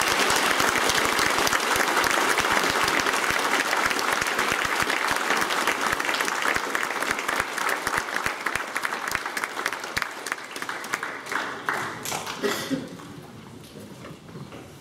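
A hall full of schoolchildren applauding: dense clapping that thins out and dies away about twelve seconds in.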